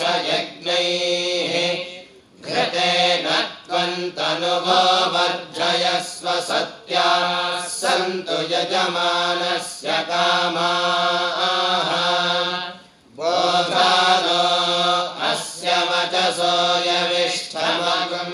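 Group of young Vedic students chanting Sanskrit Vedic mantras together in steady recitation, with two short pauses for breath, about two seconds in and near thirteen seconds in.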